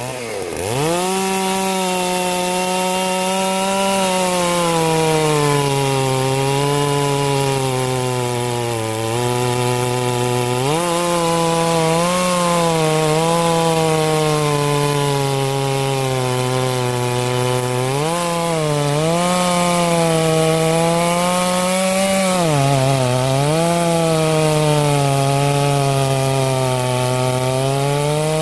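Farmertec Holzfforma G660 two-stroke chainsaw, a 92 cc clone of the Stihl MS660, revving up in the first second and then running at full throttle as its 36-inch bar cuts down through a large dry hardwood log. Under load the engine note sags three times, about a third, two-thirds and three-quarters of the way through, and each time picks back up.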